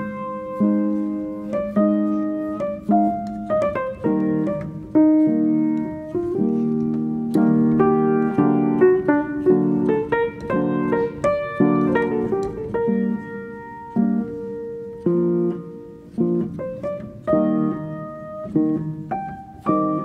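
Background music: piano playing a run of struck notes and chords.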